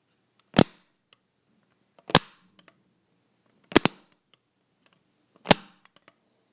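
Anchor plastic wall light switch clicked on and off by finger, four sharp snaps about a second and a half apart. The third is a quick double click.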